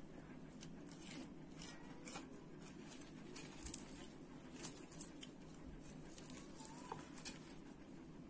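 Crisp fried chicken coating crackling as hands pull the hot strips apart: scattered light crunches, the loudest a few seconds in, over a low steady hum.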